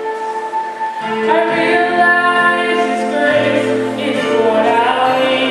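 Choir singing a slow hymn in long held chords, with a lower bass part entering about three seconds in.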